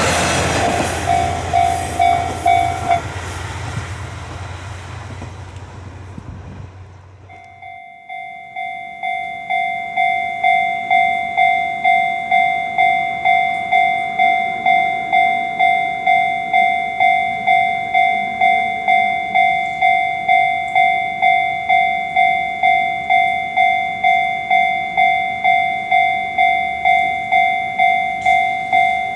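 A train passes over a Japanese level crossing. The crossing's warning bell, a repeating ding, stops about three seconds in, and the train's rumble fades away. After a brief gap a level-crossing warning bell starts up again and rings steadily at about one and a half dings a second, signalling that a train is approaching and the barriers are coming down.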